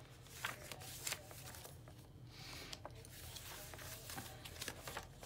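Paper pages of a handmade junk journal being turned and handled by hand: soft, irregular rustles and light taps, with a brief lull about two seconds in.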